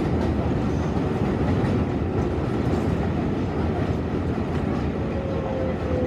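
Ride noise inside an R188 7-line subway car on elevated track: a steady rumble of wheels on rail with some rhythmic clicking over the joints as the train slows into a station. Near the end a faint whine falls slightly in pitch as the train brakes.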